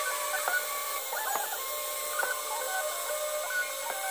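CNC-converted PM-25MV mill running a toolpath through a wooden block. Its stepper motors sing in short steady tones that jump from pitch to pitch as the axes change speed, over the steady hiss of the spindle and cutter.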